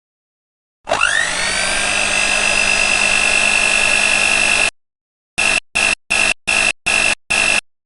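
Blender motor spinning up with a rising whine that settles into a steady high whine, cut off abruptly after about four seconds. It is then replayed as six short, identical stuttered chops, about three a second: a blender recording being sliced as a sample in a music-production program.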